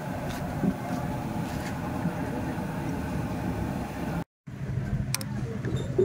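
Busy street-food stall ambience: a steady roar and hum with background chatter and a few light clinks of utensils. It cuts out abruptly for a moment about four seconds in, then picks up again.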